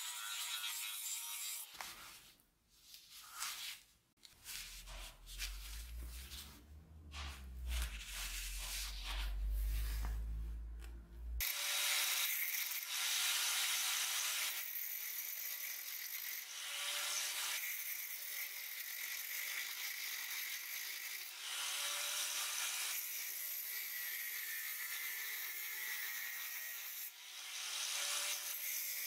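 Angle grinder working the steel axe head with an abrasive disc: a hissing, rasping grind, broken in the middle by a few seconds of low rumble, then a steady grinder hiss whose level shifts every few seconds.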